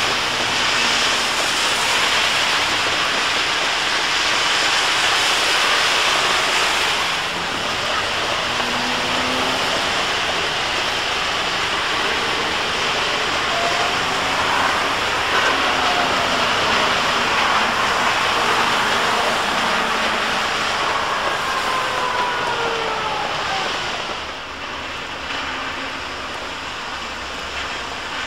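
Steady hiss of heavy rain and wet-road spray. Through the middle, a passing trolleybus adds a faint whine that slides up and down in pitch.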